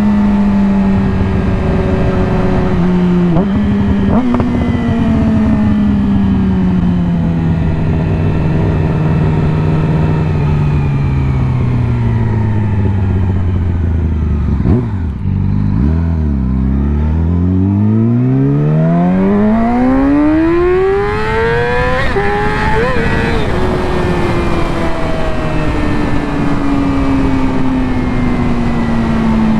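2020 Yamaha R6's inline-four through an M4 slip-on exhaust with the catalytic converter removed, under way: the engine note falls slowly as the revs drop, with a short jump about four seconds in. Past the middle the revs climb steeply for about five seconds under acceleration, then the note drops sharply and winds down slowly again.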